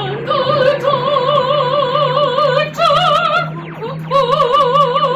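Intro music: a wordless soprano voice sings long held notes with wide vibrato, leaping up an octave early on and climbing a little higher near the middle, over a steady low bass note.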